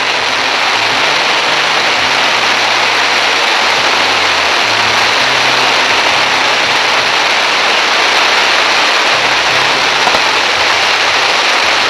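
Dense, steady hiss and crackle from a barrage of fireworks fired in fans of crackling comets and fountains, with the show's music and its bass line playing underneath.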